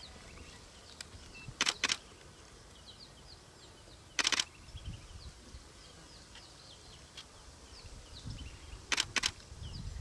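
Camera shutters clicking in short bursts: two quick clicks about two seconds in, a longer rattle of clicks around four seconds, and another pair about nine seconds in. Faint high chirps go on throughout.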